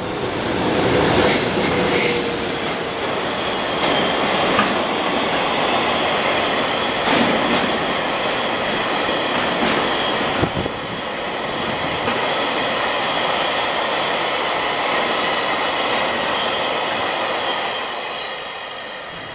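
Freight train of tank wagons behind an EH200 electric locomotive rolling past at speed: a steady rumble of wheels on rail with repeated sharp clacks over the rail joints and a thin ringing wheel squeal. It fades near the end as the last wagon passes.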